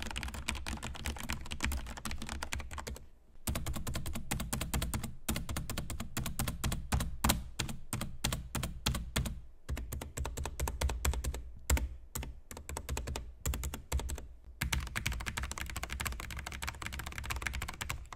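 Corsair K70 MK2 Low Profile mechanical keyboard with Cherry MX low-profile red (linear) switches being typed on: fast runs of key clicks, then repeated presses of the spacebar, Enter and Shift, and later the arrow keys, with a few short pauses between runs.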